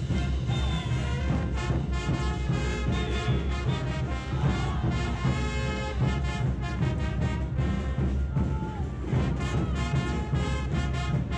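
Brass-band music with drums and a steady beat, trombones and trumpets carrying the tune.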